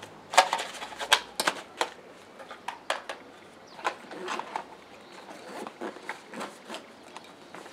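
Gear being packed into a fabric backpack (a Mil-Tec small assault pack) by hand: irregular clicks, knocks and fabric rustles as items go in. The clicks come thickest about half a second to a second and a half in, then sparser.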